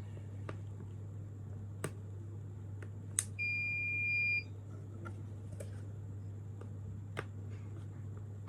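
The door lock's buzzer sounds one steady high-pitched beep lasting about a second, signalling access denied after wrong password entries. A few sharp clicks come before and after it over a steady low hum.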